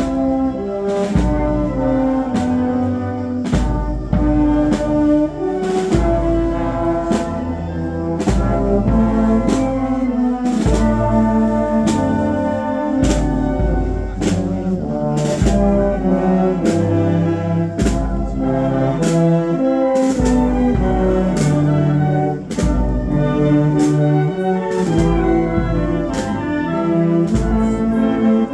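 Brass band music: trumpets and trombones playing a melody over bass notes, with drum strokes keeping a steady beat.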